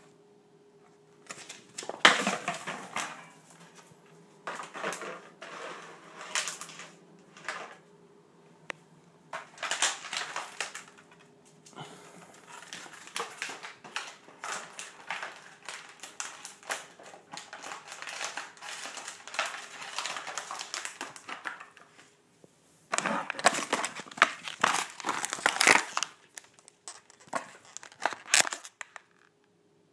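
Plastic water bottle crinkling and crunching as small dogs bite and bat it, in irregular bursts; the loudest stretches come about 2 seconds in, around 10 seconds, and from about 23 to 26 seconds.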